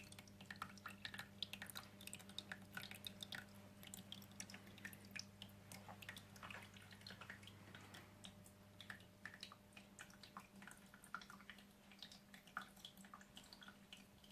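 Small waterfall running into a vivarium pond: faint water trickling and dripping in many small irregular splashes, over a low steady hum.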